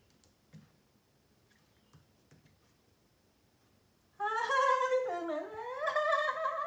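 Near silence for about four seconds with a few faint ticks, then a woman's wordless sing-song vocalising to a puppy: one long pitched note that glides down and back up.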